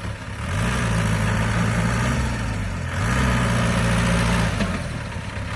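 Dump truck engine revved hard in two long surges as the truck, stuck in soft mud, tries to drive out, easing off between them.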